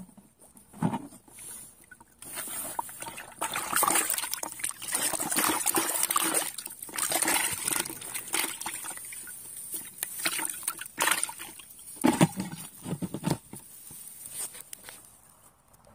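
Climbing perch splashing and thrashing in shallow water in a plastic bucket, a busy crackle of sloshes and sharp slaps that starts about two seconds in and dies down near the end.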